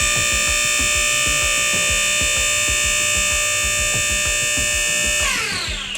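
Electric hydraulic pump motor of a single post car lift running steadily with a high whine while it raises the carriage, then switched off about five seconds in, its whine falling in pitch as it winds down.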